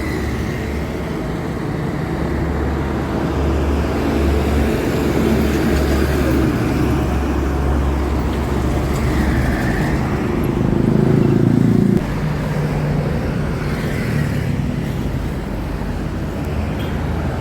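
Road traffic dominated by the low rumble of a tour bus's diesel engine pulling out. A louder stretch of engine noise about ten seconds in stops suddenly near twelve seconds, after which ordinary traffic noise goes on.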